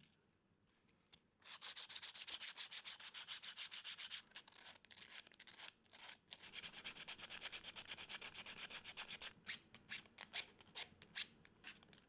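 P120 sandpaper rubbed by hand over a 3D-printed PETG mould part, smoothing its surface: fast back-and-forth rasping strokes, about six a second, starting about a second and a half in, with two short pauses, then slowing to scattered single strokes near the end.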